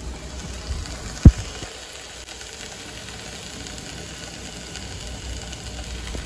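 Chicken tenders sizzling in hot oil in a nonstick frying pan, a steady hiss, with one sharp low thump about a second in.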